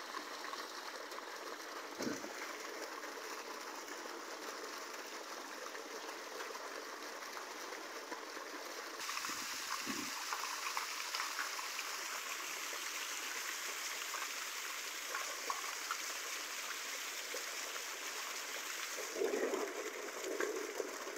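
Steady splashing rush of running water in a pool. There are a couple of dull thumps, and a short louder sound near the end.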